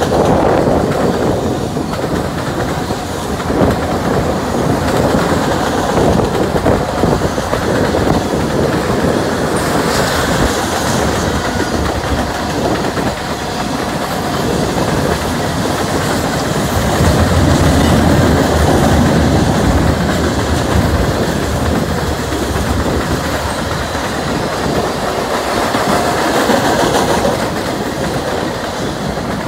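Freight cars of a long mixed freight train rolling past, their steel wheels running on the rails in a loud, steady rumble. A deeper rumble swells for a few seconds about halfway through.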